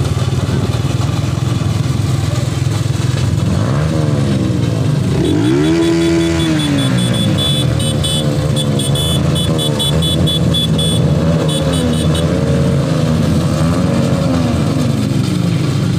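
Small motorcycle and scooter engines running steadily in a slow group ride, their pitch rising and falling several times from about four seconds in as throttles open and close. A rapid rhythmic ticking sits over them from about five seconds in.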